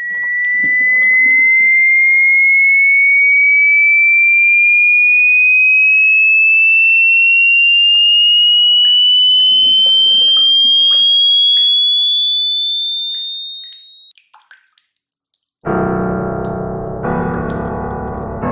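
A single pure electronic tone gliding slowly and steadily upward in pitch for about fourteen seconds, then fading out. After a short silence, electric piano chords begin near the end.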